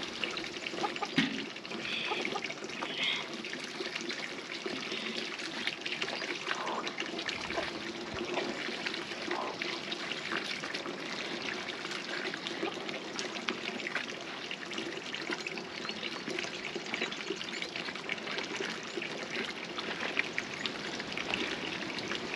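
Water poured and mixed by hand into mud for plastering a floor: continuous wet sloshing and trickling with many small splashes.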